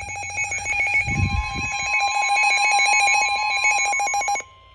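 Weather-radio alert tone: a rapidly pulsing electronic buzz made of several steady pitches that cuts off suddenly near the end, with a single steady tone joining about a second in. A brief low thump about a second in.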